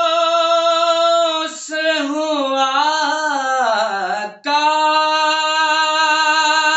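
Unaccompanied man's voice singing an Urdu naat, a devotional chant: a long held note, then a run of wavering ornaments that sink in pitch, a brief breath about four seconds in, and another long held note.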